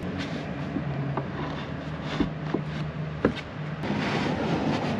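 A few short knocks and taps of wood on wood as small oak braces are fitted under a plywood false tailgate in a truck bed, the loudest a little past halfway. A low steady hum runs underneath.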